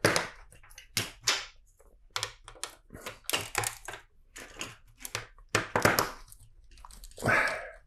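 Plastic LEGO bricks and monorail track pieces being handled and pressed together: a run of irregular sharp clicks and knocks.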